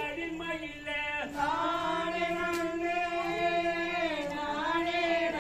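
Voices singing a Tamil Valli Kummi folk-dance song in unison. They hold one long sustained line from about a second in until near the end.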